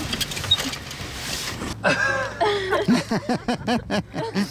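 Wind buffeting the microphone, with rustling and knocks, then after a sudden change short bursts of voice over a steady low hum, as from people talking and laughing.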